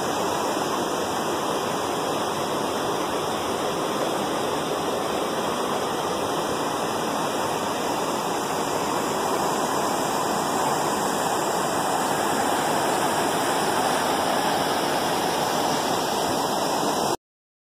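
Steady rushing-water sound effect with an even roar and no wave rhythm, cutting off suddenly near the end.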